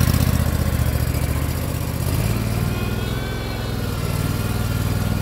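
Hustler commercial mower's engine running steadily under way, its note shifting slightly lower about two seconds in.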